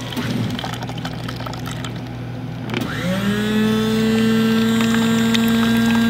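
Drink dispenser's motor starting up about three seconds in, its whine rising in pitch and then holding a steady hum, as the drink pours from the nozzle into a paper cup. Before that the motor is off while the cup is handled, with small knocks.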